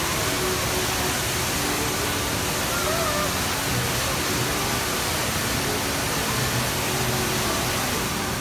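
The HSBC Rain Vortex, a tall indoor waterfall, pouring into its pool below with a steady rush of falling water.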